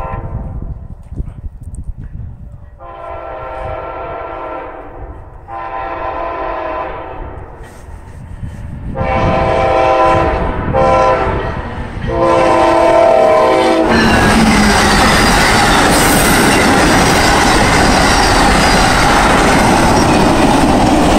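Amtrak passenger train blowing its horn in a run of long blasts for a grade crossing as it approaches, then passing close by, loud wheel and car noise on the rails.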